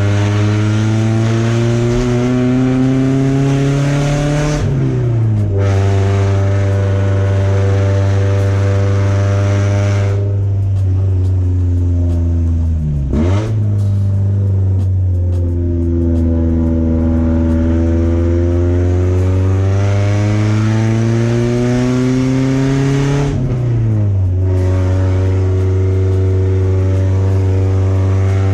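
Porsche 944's four-cylinder engine through a derestricted straight-through exhaust (header, no catalytic converter, no mufflers), loud as the car drives. The revs climb and drop suddenly at gear changes about 5 seconds in and again near the end, with a brief dip and recovery in the middle.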